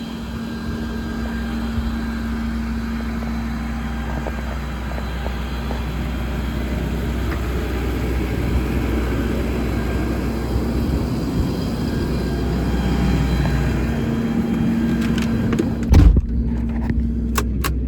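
An engine idling steadily with a low rumble and a constant hum. About 16 seconds in there is a single loud thump, after which the sound turns duller.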